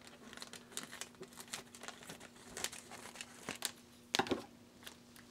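Thin plastic bag crinkling and rustling as scissors cut it open and gloved hands handle it, with many small scattered clicks and a louder crinkle about four seconds in.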